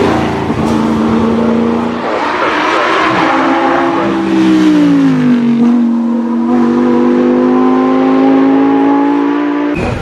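Racing car engine running hard as it drives past, its pitch dropping about halfway through, then holding steady and slowly climbing again; the sound cuts off abruptly near the end.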